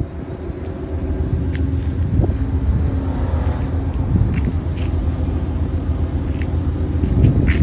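Steady low rumble and hum of an Amtrak double-deck passenger train idling at a station platform, with a few light clicks scattered through it.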